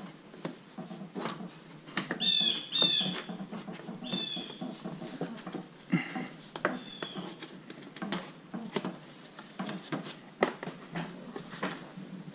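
Clicks and knocks of hand work on the car's front-end parts, with a few short, high squeaks that fall in pitch, the loudest about two seconds in and again about four seconds in.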